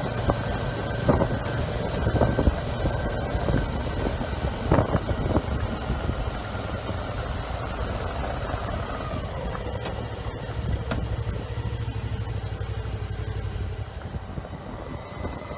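Motorcycle with a sidecar riding along a gravel road, engine running steadily, with several sharp knocks from bumps in the first few seconds. The engine note slowly drops in the second half.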